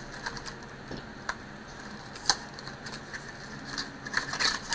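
Cardboard action-figure box being pulled open by hand: irregular clicks and snaps of the card and its flaps, with a sharp snap a little past two seconds in and a quick run of them near the end.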